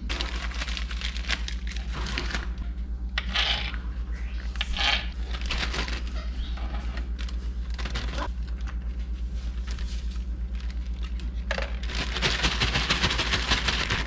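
Clear plastic bag crinkling as pieces of hot dog are handled and shaken inside it, denser and louder for the last couple of seconds, over a steady low hum.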